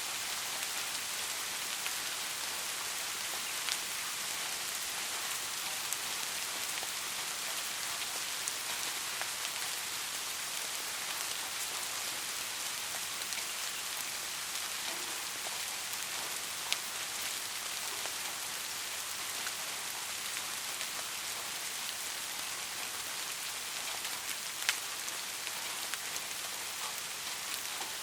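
Steady rain falling, an even hiss of many drops, with a few louder single drop impacts standing out now and then; no thunder.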